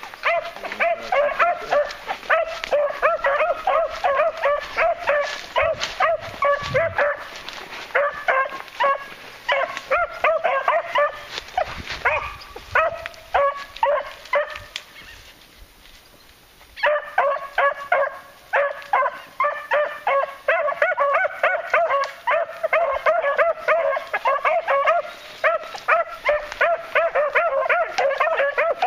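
Beagles baying on a running trail in a rapid string of short, pitched barks. The baying eases off for a moment past the middle, then picks up again hard.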